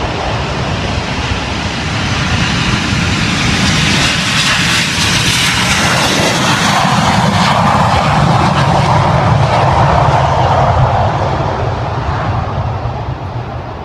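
Red Arrows BAE Hawk T1 jets' turbofan engines running at take-off power as the jets roll down the runway: a loud, continuous jet rush that swells as they pass and fades away near the end.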